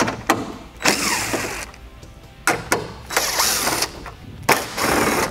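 A cordless DeWalt impact driver runs in three short bursts with clicks between them, spinning out the 10 mm bolts that hold a Toyota Tundra headlight in place.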